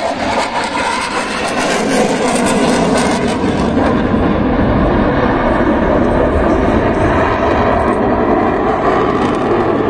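Loud, steady jet engine noise from a delta-wing fighter jet flying past, its highest-pitched hiss fading after about four seconds.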